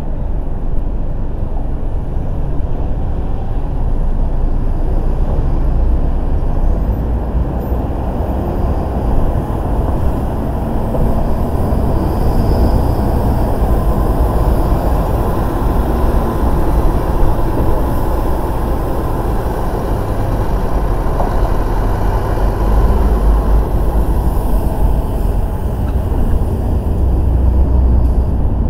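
A car being driven, with a steady low rumble of road and engine noise.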